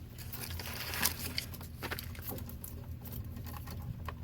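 Paper wrapping being pulled and stripped off the bare ground wire of a nonmetallic sheathed cable: scattered rustling, crinkling and small scratchy clicks, with a sharper tick about a second in. A steady low hum runs underneath.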